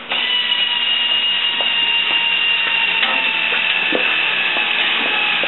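Compressed air hissing steadily out of a P-2 press's pneumatic line, with a high whistle that sinks slightly in pitch; it starts suddenly.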